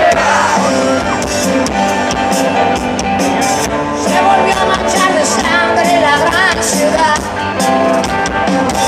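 Live rock band playing loudly: electric guitar over drums with crashing cymbals, with some singing, heard from within the audience.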